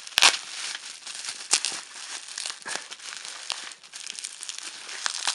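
Bubble wrap being handled and unwrapped from a package: a steady crinkly rustle with sharp crackles and pops, the loudest about a quarter of a second in.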